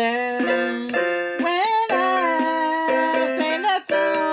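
Electronic keyboard playing held, organ-like notes and chords that change every half second or so, with a sliding, wavering line near the middle.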